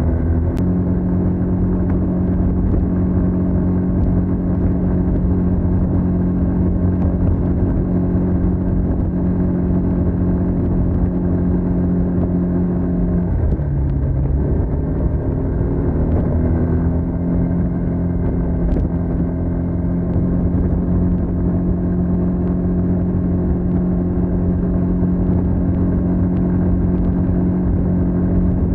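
Stock exhaust of a TVS NTorq 125 scooter's single-cylinder four-stroke engine running at a steady pitch, with a brief dip in revs about halfway through before the note picks up again and holds.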